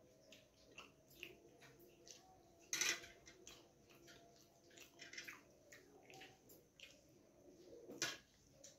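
Faint eating sounds: fingers mixing and scooping rice on a stainless steel plate, with many small clicks and scrapes against the steel and two louder knocks, one about three seconds in and one near the end.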